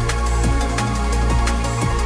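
Electronic dance music with a heavy bass and a steady beat, about two hits a second.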